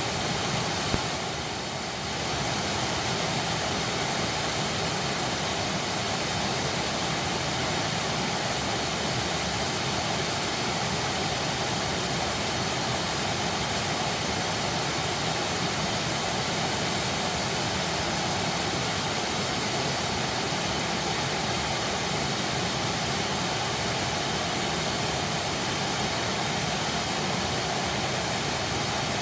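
Waterfall rushing: a steady, even wash of falling water with no let-up.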